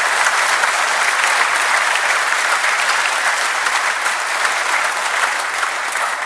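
Sustained applause from the assembly's members and guests, a dense steady clapping that slowly dies down toward the end.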